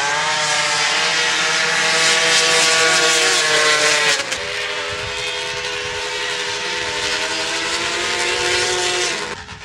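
Racing ATV engines running flat out on a sand drag run: the pitch climbs sharply at the launch, then holds at high revs. About four seconds in the sound cuts to another quad's engine, also held at high revs, which breaks off just before the end.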